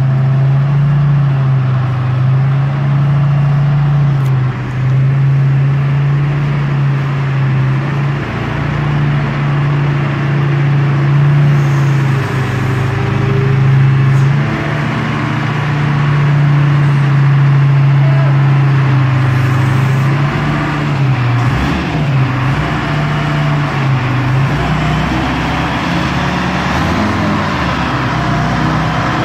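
The engine of a large old Clark forklift running steadily under load as it carries a truck's rollback bed. Its pitch wavers and shifts a few times in the last third as it manoeuvres.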